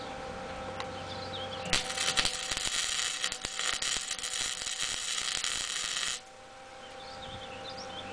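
Arc welding on a cracked exhaust manifold: a dense crackling starts about two seconds in, runs for about four and a half seconds and cuts off suddenly.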